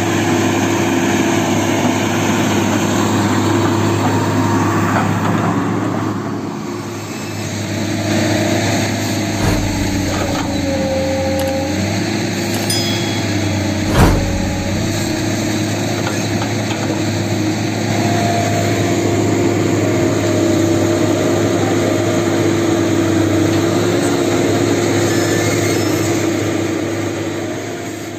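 Hitachi hydraulic excavator's diesel engine running steadily as it digs, with two sharp knocks, about a third of the way through and halfway.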